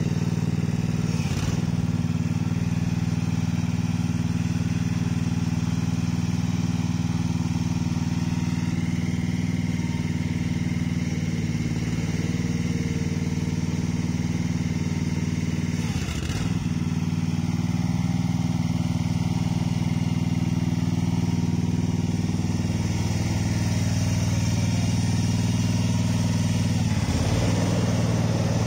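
Small engine of a Feucht OB 100 potato harvester running steadily at a constant speed, with a brief dip about halfway through.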